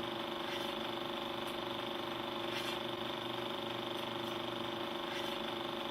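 A steady mechanical drone like an engine idling, holding several fixed pitches, with faint ticks every second or so.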